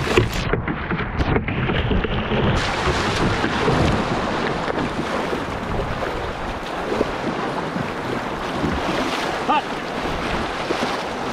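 Rushing whitewater around a canoe running a rapid, a steady loud wash, with wind buffeting the microphone.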